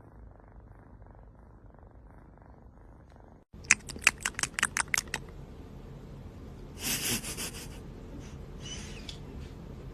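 A cat purring softly and evenly. After an abrupt cut, a quick run of about nine sharp clicks or taps, then a short rushing noise a few seconds later.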